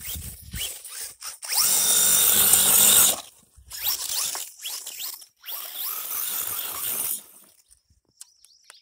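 A 1/16 scale RC truck's 5900kv brushless motor whining in hard throttle bursts as the truck tears through sand, tyres spraying sand. The loudest burst comes about two to three seconds in. The motor sound stops about seven and a half seconds in.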